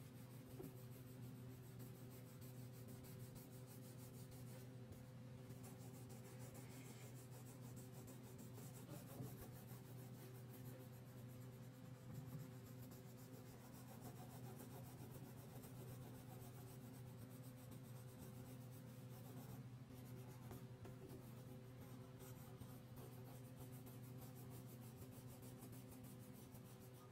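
Orange crayon scratching on paper in quick back-and-forth shading strokes, faint, over a low steady hum.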